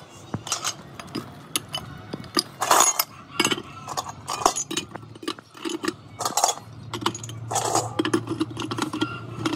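Irregular clinks and clanks of metal parts knocking against each other as they are handled, over a low steady hum.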